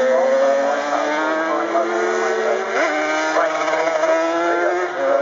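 Several Yamaha TZ two-stroke racing motorcycle engines running hard together, their pitch rising steadily as they accelerate, with a sudden step up in pitch about three seconds in.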